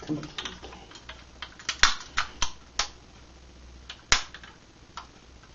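Die-cast model car creaking and cracking under a bare foot pressing down on it: a string of sharp, irregular cracks and clicks, the loudest about two seconds in and about four seconds in.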